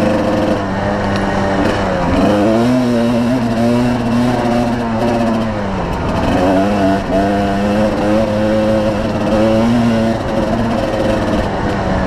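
Two-stroke single-cylinder engine of a 2005 Kawasaki KDX220R trail bike under way, its pitch rising and falling with the throttle, dropping and climbing again about two seconds in and about six seconds in.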